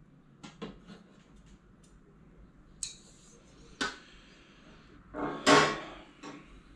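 Parts of a small countertop microwave shelf being handled and fitted together: scattered light clicks and clinks, and a louder rattling scrape about five seconds in.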